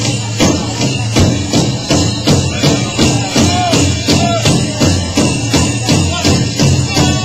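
Powwow drum group performing a song: a large powwow drum struck in a steady beat about twice a second under the singers' voices, with a jingling of bells or metal jingles.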